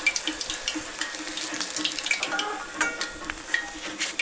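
Hot oil in a kadai sizzling and crackling around vermicelli-coated egg devils as they finish deep-frying, with many quick sharp pops.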